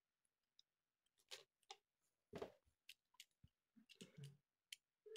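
Faint, scattered clicks and taps of small plastic toy parts from a Kinder Surprise egg being handled and fitted together, starting about a second in.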